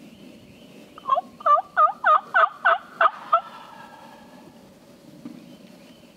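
A loud run of about eight turkey yelps, evenly spaced over a little more than two seconds, each note dropping and rising in pitch.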